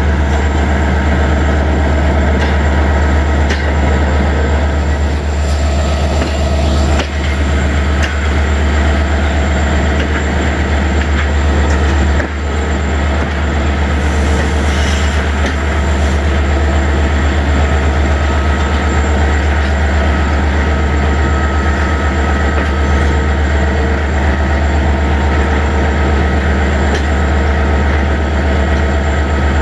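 Passenger train carriages rolling slowly past on the adjacent track, close by. A steady low drone runs under it, with a couple of brief wheel knocks.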